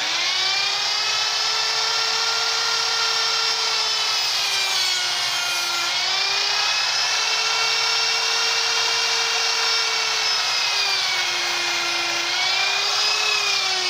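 Carving chainsaw running flat out while cutting into wood. Its pitch sags briefly twice as the chain bites into the wood, and it starts to wind down right at the end.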